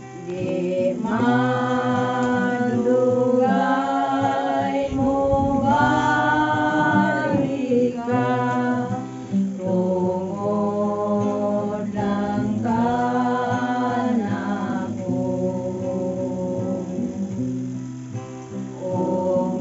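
Music: a voice singing a song over guitar accompaniment, phrase after phrase, the voice wavering in pitch over steady chords.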